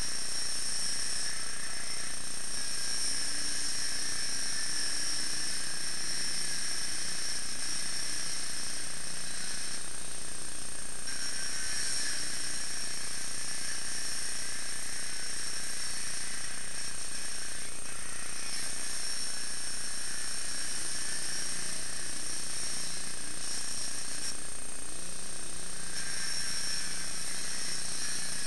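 Gas-powered saw running at high speed on the roof, a steady high-pitched whine that rises and falls in strength every few seconds as it cuts a ventilation opening through the roof.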